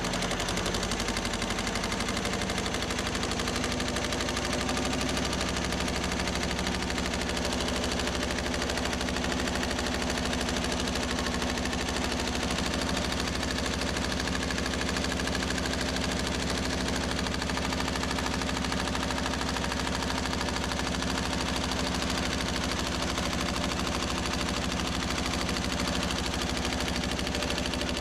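Power hammer fitted with custom dies running continuously, striking a sheet-metal panel in a rapid, even stream of blows to form a bead line, with a steady hum from the machine underneath.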